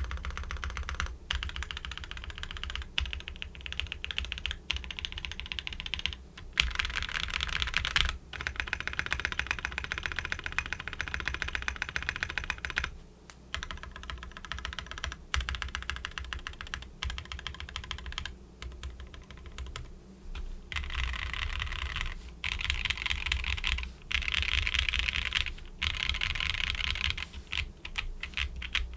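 Typing on a Matrixlabs Corsa mechanical keyboard with lubed, filmed linear switches (NK Dream Cream stems in silk housings), an aluminium skeleton plate and KAT Milkshake keycaps: dense runs of keystrokes in bursts of a few seconds with brief pauses between.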